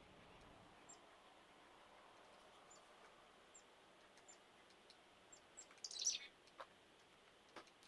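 Winter birds chirping faintly: scattered short, very high peeps, then one louder chirp that falls in pitch about six seconds in, followed by a couple of faint ticks.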